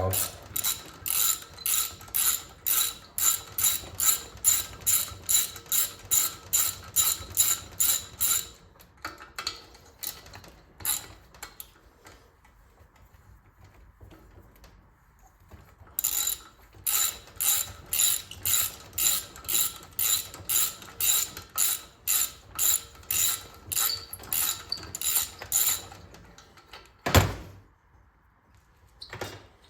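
Hand ratchet wrench clicking in a steady rhythm of about two to three clicks a second while bolts are worked loose on a small engine, in two runs with a pause between. A single heavier knock comes near the end.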